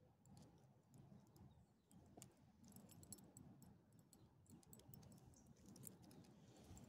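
Faint, scattered clicks and light jingling from a small dog's metal collar tags and leash clip as it noses at a bowl, thickest from about two and a half seconds in, over near silence.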